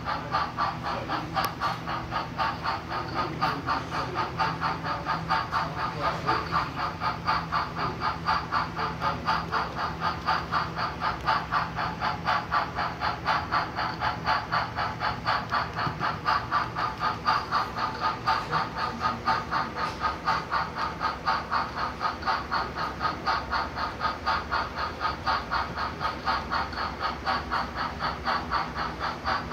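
HO-scale Broadway Limited Blue Line model of Frisco 2-8-0 #1630 chuffing steadily through its onboard sound decoder, about four chuffs a second, as it runs along with its passenger train.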